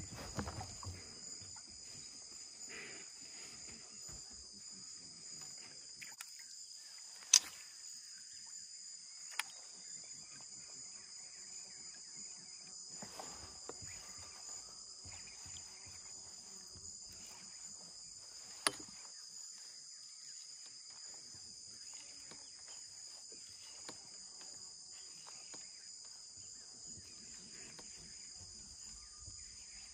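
Steady high-pitched insect chorus, a continuous shrill drone of crickets. A few sharp clicks cut through it, the loudest about seven seconds in, with others at about nine and nineteen seconds.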